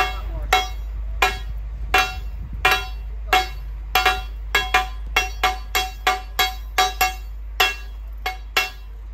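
Hammer blows on the heated steel tire of Southern Pacific 1744's driving wheel, each ringing briefly. About twenty strikes, quickening from about one every 0.7 seconds to about three a second. The tire is being tapped onto the wheel center to align it.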